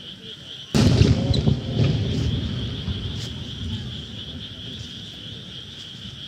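Aerial firework shell bursting with a sudden loud boom, followed by a rolling rumble that fades over a few seconds and a second, smaller bang about a second later. A steady high-pitched chirring runs throughout.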